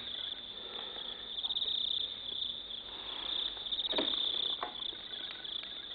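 Crickets chirping steadily in rapid, pulsing trills, with two brief soft sounds about four seconds in.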